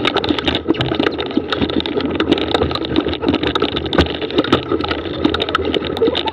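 Mountain bike climbing a loose dirt trail, picked up by the rider's own camera: a steady rumble of knobby tyres on dirt and stones, shot through with many small rattles and clicks from the bike.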